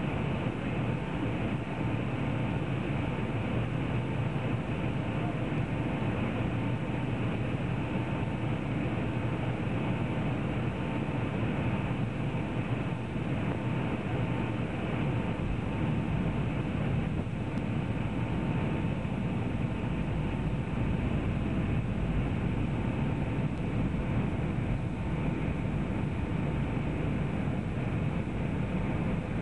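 Steady cabin noise of an airliner descending on approach: jet engine and airflow rush heard from inside the cabin, even and unbroken, with a faint steady tone running through it.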